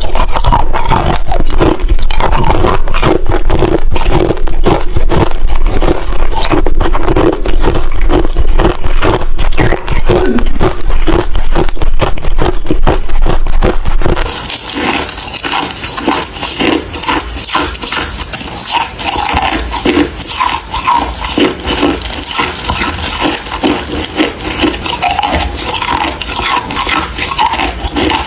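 Ice being crunched and chewed close to the microphone: a dense, continuous run of crackling crunches. About halfway through, the crunching turns somewhat quieter and brighter.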